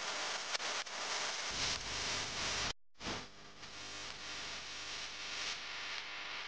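Background music with a hissy, dense texture. It cuts out briefly a little under halfway through, then resumes with steadier held notes.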